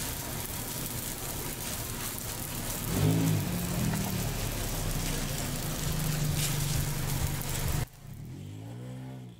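A motor vehicle engine revving up and then running steadily, over a constant street hiss. The sound cuts off suddenly near the end, and a fainter engine tone rises and falls.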